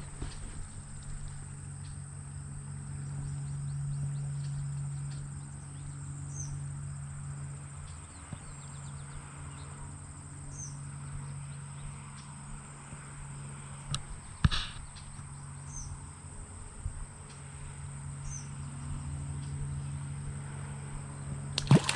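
Insects trilling in one steady high-pitched buzz over faint running creek water, with a few short bird chirps. A couple of sharp knocks come about two-thirds of the way in.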